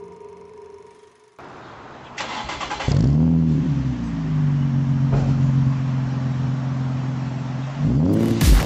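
Nissan 350Z's 3.5-litre V6 being started. After a moment of cranking it catches with a brief flare of revs, then settles to a steady idle, and near the end it is revved up.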